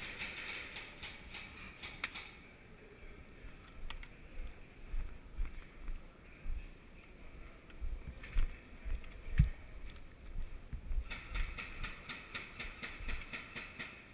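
Footsteps and gear movement of a player walking on a concrete walkway, heard as irregular low thumps. About three seconds before the end, a rapid run of evenly spaced clicks starts, about six a second.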